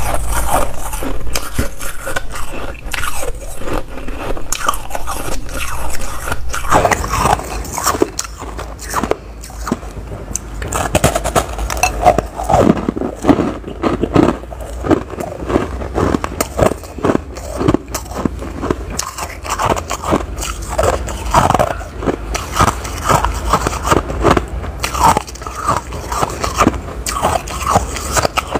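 Crumbly white snow ice being bitten and chewed close to the microphone: a dense, continuous run of crisp crunches, one bite after another.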